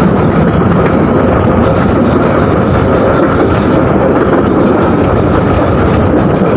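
A passenger train in motion, running with a loud, steady rumble.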